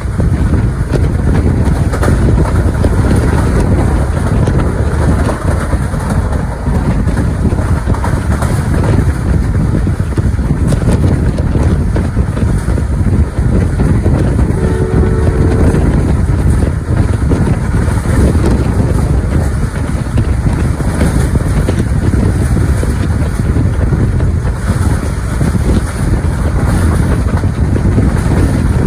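Passenger train running at speed, heard from the side of a coach: a steady rumble of wheels on rail mixed with wind on the microphone. About halfway through, the locomotive's horn sounds one short blast of about a second.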